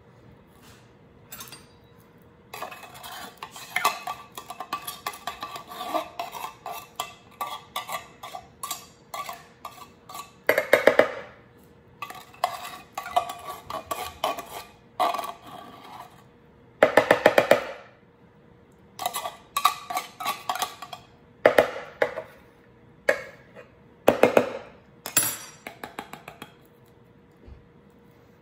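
A metal table knife scraping and knocking inside an upturned tin can, working thick condensed cream of mushroom soup out into a bowl. It comes in runs of rapid clicks and clanks, with a few louder spells of quick rattling.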